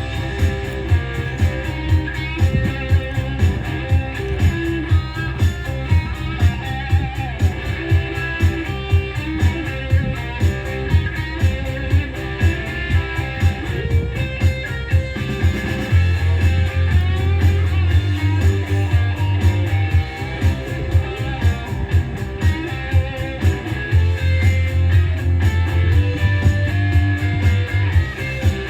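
Guitar-driven music with a steady beat of about two strokes a second, and a deep bass note held for two stretches of about four seconds in the second half.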